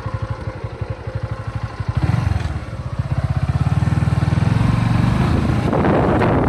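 Motorcycle engine running under way, its exhaust pulsing steadily and picking up about two seconds in. A rushing noise joins near the end.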